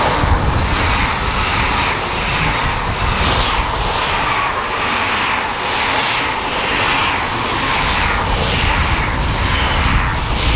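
A train passing close by on the mainline at speed: a steady rush of wheels on rail with a low rumble, surging in a regular rhythm about every 0.7 s as the cars and bogies go by.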